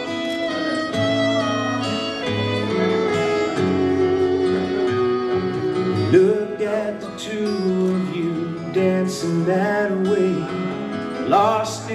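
Slow country ballad's instrumental introduction playing, with guitar and fiddle carrying the melody.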